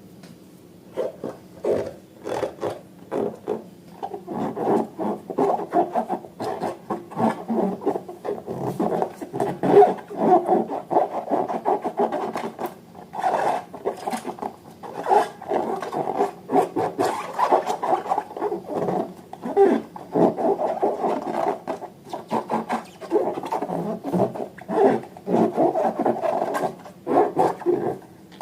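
Slime being squished and worked by hand, with dense, irregular sticky clicks and rubbing sounds that start about a second in and continue steadily.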